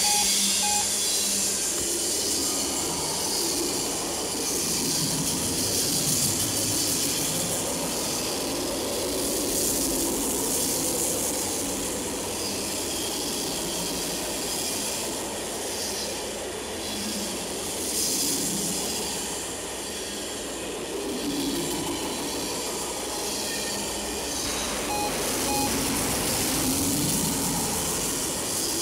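Cars of a mixed-freight train rolling steadily past on the near track: a continuous rush of steel wheels on rail.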